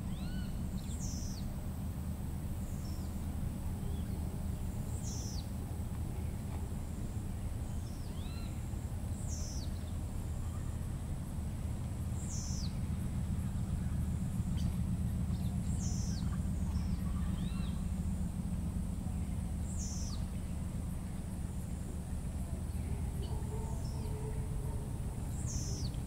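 Tropical forest soundscape: a bird repeats a short, high whistle falling in pitch about every four seconds, with fainter short rising calls between, over a steady high drone and a low rumble.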